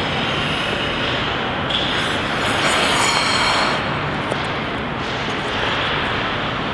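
Steady background noise of an ice arena, swelling slightly for a second or two about two seconds in.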